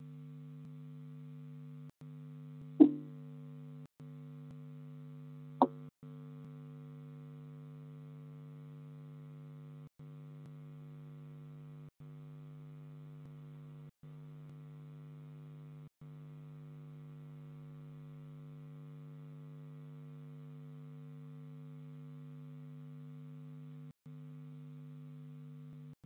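Steady electrical hum from a nest-box camera's audio, cut by short dropouts about every two seconds. Two sharp clicks stand out, about three seconds in and again under three seconds later, the first the louder.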